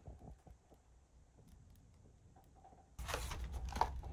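Cardboard snack boxes being handled by hand: a few faint taps at first, then from about three seconds in a run of rustling and knocks over a low hum.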